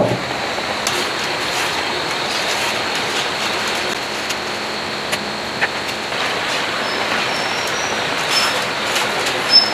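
Geared hand-cranked coil-winding machine whirring steadily as it is turned, winding enamelled copper wire onto a slotted coil former, with a few light clicks and some short high squeaks near the end.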